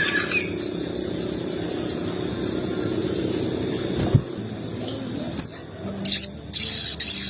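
A steady low hum with a high hiss, then a click and, from about six seconds in, quick sharp high chirps of a crimson sunbird (sogon).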